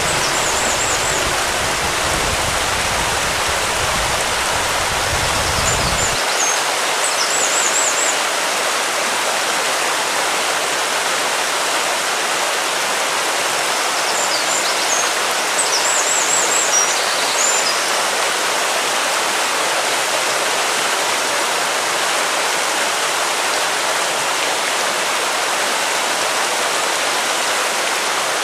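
Steady, even rushing noise like running water, with a low rumble that cuts off about six seconds in. Brief high chirping trills come through a few times.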